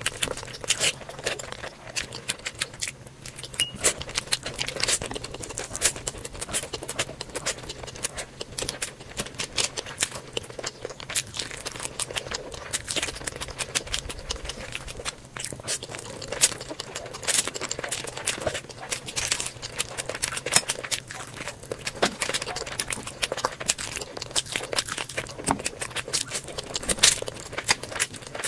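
Close-miked ASMR eating sounds: continuous wet chewing with lip smacks and sharp mouth clicks, as spicy curry, rice and fried noodles are eaten.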